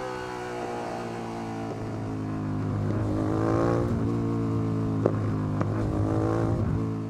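Suzuki SV650 V-twin motorcycle engine under way, recorded onboard. The sound switches partway from a microphone at the air intake to one at the exhaust. The revs rise under acceleration a few seconds in, then hold, with two brief clicks, before the sound fades out at the end.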